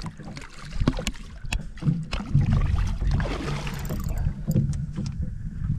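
Wind buffeting the microphone on a small boat, a low rumbling noise with scattered sharp knocks and clicks, and a brief hissing swell about three seconds in.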